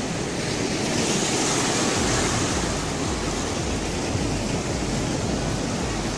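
Sea surf washing and breaking against a rocky shore: a steady rush of waves that swells a little about a second in.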